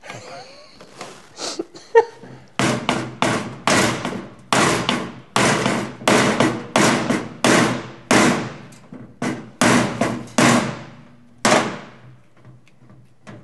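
A hammer striking the butt of a screwdriver whose tip sits in a stuck screw in a metal avionics case, to shock the screw loose. It is a rapid series of about two dozen sharp blows, around three a second, that stops about eleven and a half seconds in.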